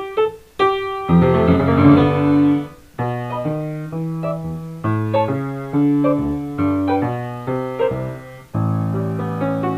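Solo piano music: a few quick single notes, then full chords struck and held, changing every second or two.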